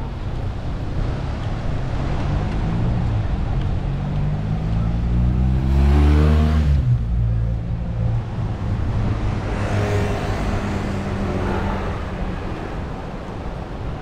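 Motor vehicles driving past on the road: the first passes loudest about six seconds in, its engine pitch rising as it approaches and dropping sharply as it goes by; a second, fainter one passes around ten seconds in. Steady traffic and outdoor noise underneath.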